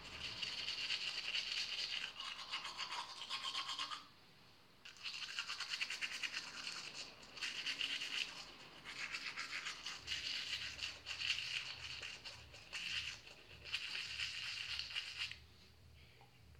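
Teeth being brushed with a toothbrush and toothpaste: quick scrubbing strokes in runs, with a pause about four seconds in, stopping shortly before the end.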